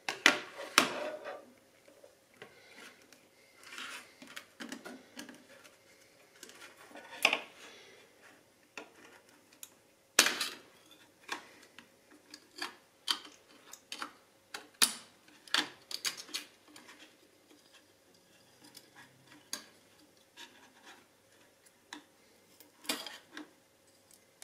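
Irregular clicks, taps and scraping of small plastic and metal smartphone parts (the Alcatel 3C's frame, mainboard and hand tools) being handled, pried and set down on a table, with a faint steady hum underneath.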